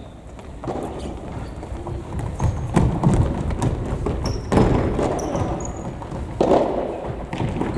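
Indoor futsal play: running footsteps and several thuds of the ball being kicked and hitting the court, with a few short high squeaks of shoes on the gym floor.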